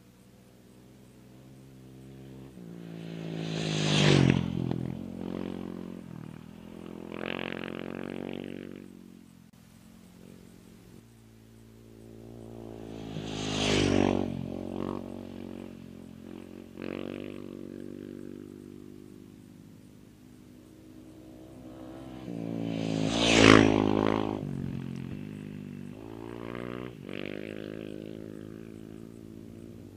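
Three off-road race vehicles pass one after another at speed on a dirt course, about ten seconds apart. Each engine note rises as it approaches, peaks loudly as it goes by, then drops in pitch and fades.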